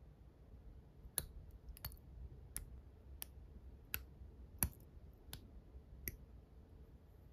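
Small side-cutting nippers snipping through the thin spokes of a 1/12 scale model motorcycle wheel, taking out the old spokes so they can be replaced. Eight sharp, faint snips come about every 0.7 seconds.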